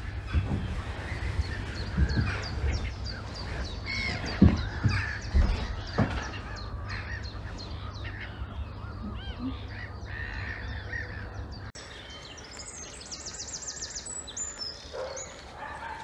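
Wild birds calling around a reed-fringed lake: repeated harsh, cawing calls mixed with shorter chirps, and a fast high trill a little past the middle. Low rumble and a few dull thumps sit under the calls for the first two-thirds, then stop abruptly.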